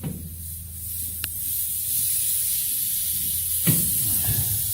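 Compressed air hissing steadily on a diesel locomotive, growing louder over the first two seconds. A short knock sounds at the start and another a little before the end, as a valve is handled.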